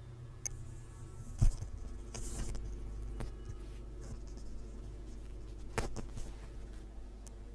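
Scattered handling noises: a few sharp clicks and knocks, one loud thump about a second and a half in, and brief rustling, over a steady low hum.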